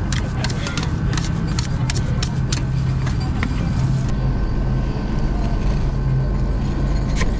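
Metal spatulas tapping and scraping on a steel rolled-ice-cream cold plate, a quick run of sharp clicks in the first few seconds and only one or two after, over a steady low hum.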